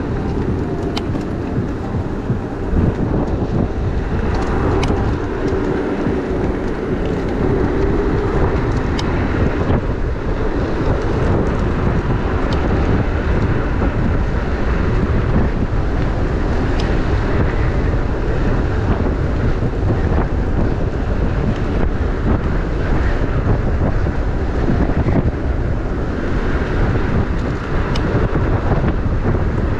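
Steady wind rush on a body-worn camera's microphone while riding an electric moped, with a few faint clicks scattered through.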